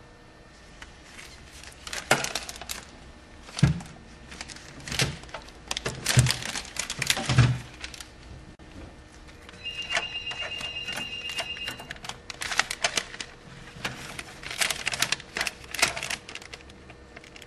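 Plastic trays and containers being handled in a manual tray sealer: irregular clicks, knocks and crinkles of plastic, with a few dull thuds in the first half. About ten seconds in, a high beeping tone sounds for about two seconds.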